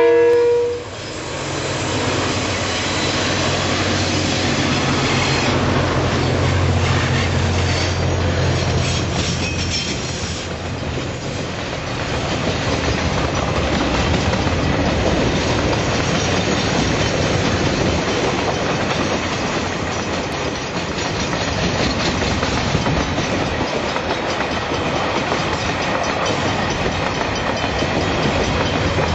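A diesel locomotive's horn cuts off just as the sound begins. The locomotive's engine then rumbles past for about ten seconds, followed by a long container freight train's wagons rolling steadily by with a clickety-clack of wheels over the rail joints.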